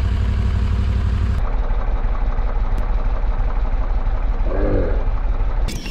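Prodrive mud motor on a flat-bottom boat running steadily at low speed, with a steady low drone. The engine sound drops away abruptly just before the end.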